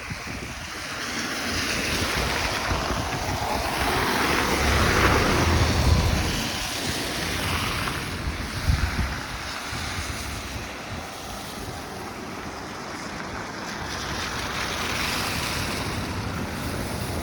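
Snowstorm wind gusting across the microphone: a steady rushing noise that swells about four seconds in and again near the end.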